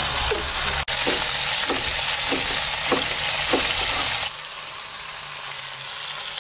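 Spring onions and garlic sizzling in a hot cast-iron pot on a gas grill, with a knife chopping tarragon on a board in short regular strokes. About four seconds in, the sizzle drops to a softer hiss.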